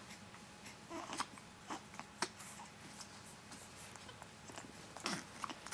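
Infant twins hiccuping: a few short, sharp hiccups, about a second in and again near the end, with faint clicks and rustles of movement between.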